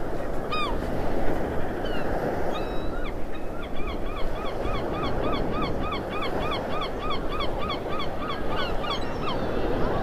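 Birds calling over the steady rush of surf. Scattered short calls in the first few seconds, then a fast run of short calls at about three a second that stops near the end.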